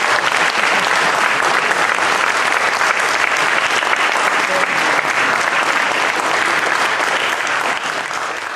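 Audience applauding steadily with dense clapping, beginning to fade near the end.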